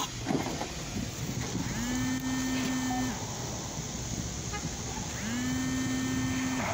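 Car horn sounding in two long, evenly spaced blasts of about a second and a half each, over background traffic noise. A brief knock comes right at the start.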